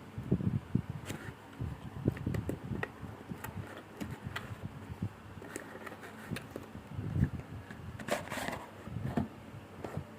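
Handling noises while unboxing: scattered light clicks and low knocks, with a brief scraping rustle about eight seconds in.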